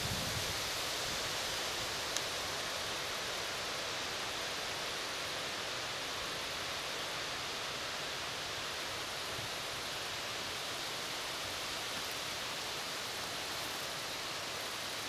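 Steady even hiss of outdoor background noise in a birch wood, with one faint tick about two seconds in.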